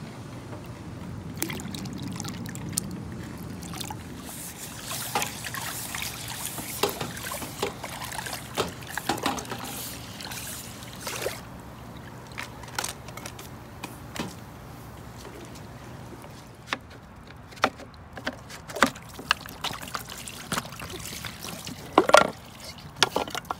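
Pool water sloshing and trickling as a pool brush on a pole works through it, with scattered splashes and clicks over a low steady hum, and a louder clatter near the end.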